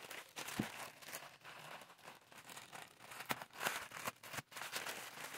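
White plastic poly mailer bag crinkling and rustling as gloved hands handle it and work it open, with irregular crackles and a few sharper ones past the middle.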